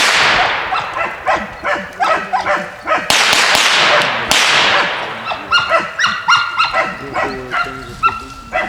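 Squirrel dogs barking and yipping in quick repeated bursts. Two sudden loud noisy blasts, one at the start and one about three seconds in, each fade out over a second or so.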